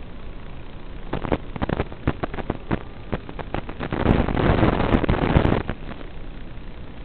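Analog FPV video-link audio: a steady hiss with scattered crackles, then a louder burst of static about four seconds in that lasts under two seconds, as the radio signal breaks up behind trees.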